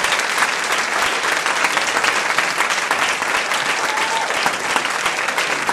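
Audience applauding, dense clapping from many hands.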